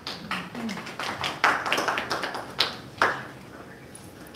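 A quick run of irregular taps and knocks over about three seconds, with a few sharper, louder ones among them.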